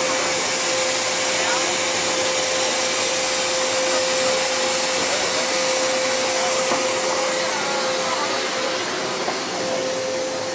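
Loud, constant hiss of compressed air leaking inside an MTR Kwun Tong Line M-Train car, with a steady tone running under it and easing slightly near the end. The leak is a fault with the train's out-of-use doors, which the uploader takes as more than one broken part.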